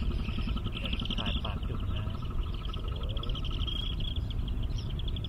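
Outdoor ambience: a steady low rumble under a continuous fast, high-pitched trilling, with a few faint calls.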